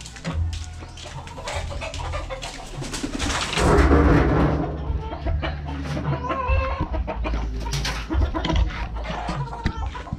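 Chickens clucking and calling, over low rumble and scattered knocks from the camera being carried.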